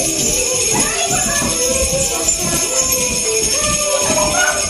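Sleigh bells jingling continuously, shaken along with recorded music that carries a melody.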